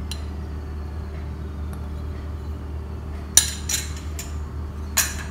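A metal spoon clinks against ceramic bowls a few times, mostly in the second half, as chilli powder is spooned into a bowl of gram flour. A steady low hum runs underneath.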